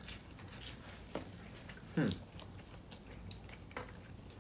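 Close-up mouth sounds of people biting and chewing food: soft wet smacks and small clicks, with a short falling hum from a voice about two seconds in.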